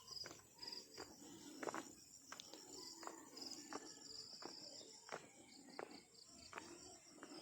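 Faint, pulsing high chirping of insects, with footsteps on the ground about every two-thirds of a second.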